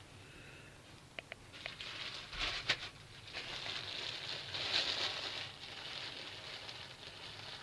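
Hands handling fishing tackle and bait while rebaiting a jig: a few light clicks, then rustling and scraping with one sharp click, fading into a softer rustle.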